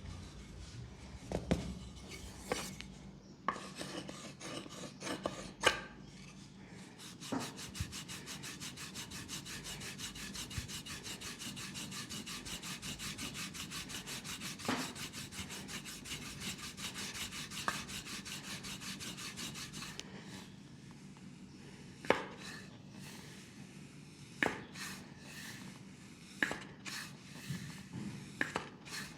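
Leg massage: hands rubbing and working the skin, with a fast, even run of strokes through the middle and scattered sharp taps before and after.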